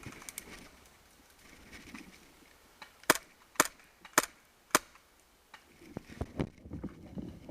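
Airsoft gun firing four sharp single shots, about half a second apart.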